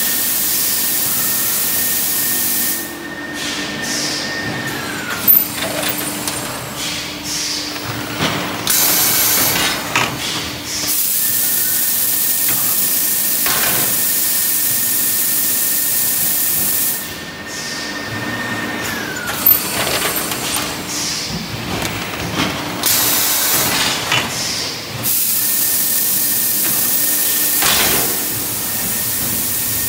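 Semi-automatic vacuum forming machine cycling as it forms sheets of plastic cup lids: a loud steady hiss of air alternates with quieter stretches of knocks and sharp air blasts, repeating about every 14 seconds over a low hum. A high whine slides down in pitch twice.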